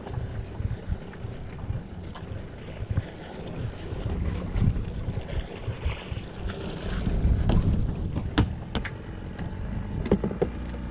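Wind rumbling on the microphone aboard a small fishing boat, with a few sharp knocks in the last few seconds.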